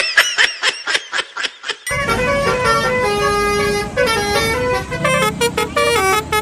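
Bus telolet horn playing a tune of stepped, held notes, preceded in the first two seconds by a quick run of short rising-and-falling chirps.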